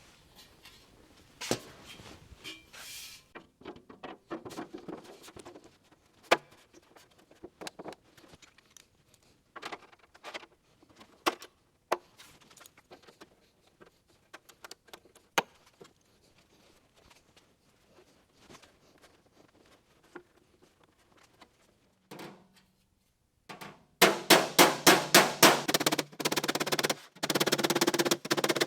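Scattered light knocks and clanks as a steel patch-panel skin is handled and fitted on a 1928 Ford Model A door, then near the end a loud, fast run of hammer blows on the sheet metal, about five a second, hammering the skin down in place.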